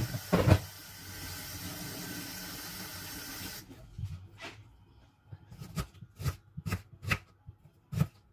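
A tap runs with a steady hiss for about the first three and a half seconds, with a loud clatter about half a second in. Then a kitchen knife slices ginger on a wooden cutting board, making about eight separate sharp knocks.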